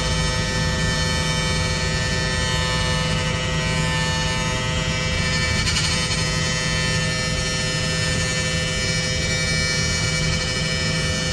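Steady electrical buzzing inside a bus: a drone holding at one pitch, with a low hum beneath it.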